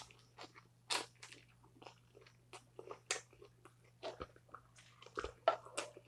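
Close-miked chewing of a mouthful of fresh lettuce, in short irregular crunches. The crunches grow louder near the end, mixed with the clicks of metal chopsticks against the grill plate.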